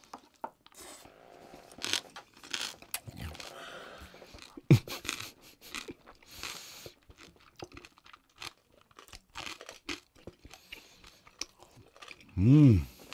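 Close-up crunching and chewing of crisp roasted pork-belly skin (liempo), a run of small crackly crunches with one sharper crack a little under five seconds in. Near the end comes a short hummed "mmm" that rises and falls in pitch, louder than the chewing.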